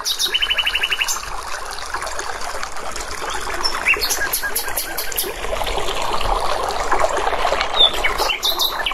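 Running water with birds chirping over it: a rapid trill near the start and short rising chirps here and there.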